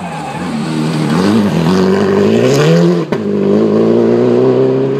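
Citroën DS3 rally car accelerating hard out of a tarmac hairpin, its engine revs rising and falling as it goes up through the gears. There is a sharp crack about three seconds in.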